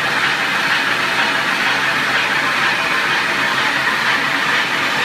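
Heavy roll-turning lathe running: a steady, even machine noise with no change in level.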